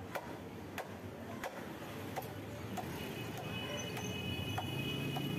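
Wooden mallet knocking on the back of a large fish knife, driving it through a rohu fish head, with sharp knocks about every two-thirds of a second. A steady high tone comes in over it about three seconds in.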